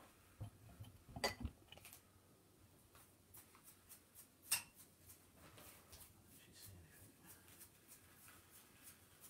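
Quiet clicks and knocks of painting tools being handled, a cluster in the first second and a half and one sharper click near the middle, then faint scratchy sounds of stiff bristles against the paint.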